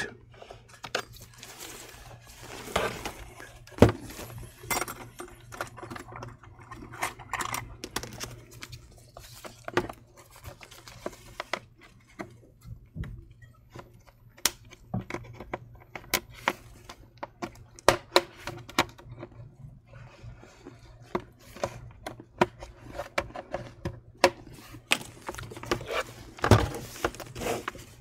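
Pry tool working along the seam of an HP 17 laptop's bottom cover, scraping, with many irregular sharp clicks and snaps as the cover's clips come loose.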